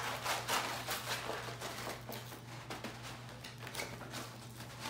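Diamond painting canvas with its plastic cover film being rolled by hand around a tube: soft, irregular rustling and crinkling.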